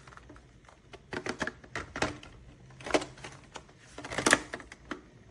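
Handling noise from a handheld mattress vacuum cleaner: a scatter of light clicks, taps and knocks as its plastic body is handled, with the motor switched off.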